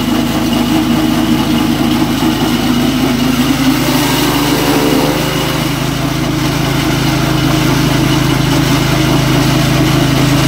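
Chaff cutter running steadily on a test run, its motor giving a constant hum. The pitch of its low note shifts about halfway through.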